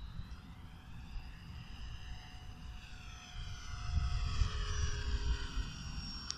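Radio-controlled model airplane making a low pass at full throttle. Its engine note grows loudest about four seconds in and falls in pitch as it goes by.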